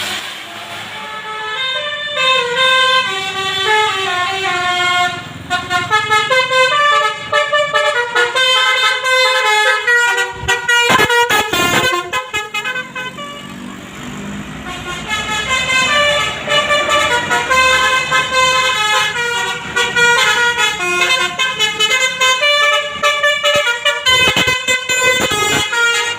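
Basuri telolet bus horn playing a tune: a long run of short pitched horn notes stepping up and down, with a dip in loudness about halfway through. Sharp clicks sound twice, around the middle and near the end.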